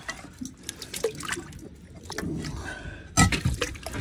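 Water dripping and splashing while wire rope is worked off a boat's propeller by hand, with scattered small knocks and a louder clunk about three seconds in.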